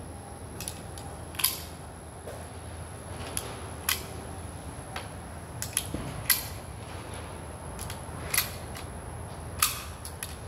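Cartridges being pressed one at a time into a rifle magazine: a sharp click every two seconds or so, coming faster near the end, with fainter handling ticks in between.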